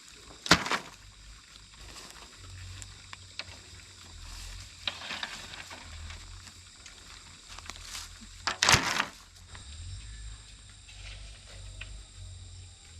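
Two loud, short clattering knocks about eight seconds apart, with a softer rustle between them, over a faint steady high-pitched drone.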